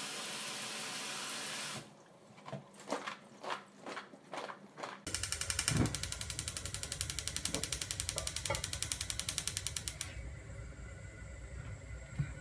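Tap water running onto shredded potatoes in a plastic colander, stopping after about two seconds. A few scattered knocks follow, then a gas stove's igniter ticks rapidly and evenly for about five seconds over a low steady rush that carries on afterwards.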